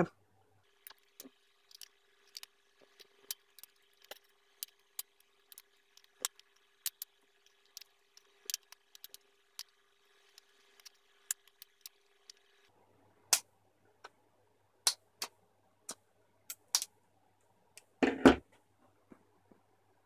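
Red plastic housing of a Siemens washing-machine pressure switch being pried and snapped apart with needle-nose pliers: a run of sharp, irregular plastic clicks and cracks, with a louder knock near the end.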